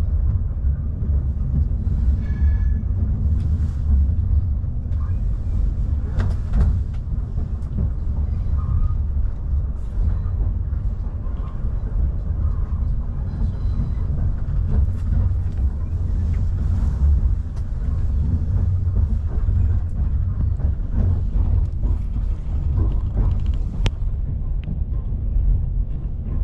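Steady low rumble inside the carriage of a moving intercity passenger train, with faint rattles and ticks over it.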